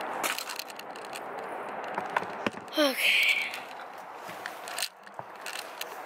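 Rustling and knocking of a handheld camera and clothes as someone climbs into a car, with scattered sharp clicks and a louder rustle about three seconds in; the outside background drops suddenly just before the end.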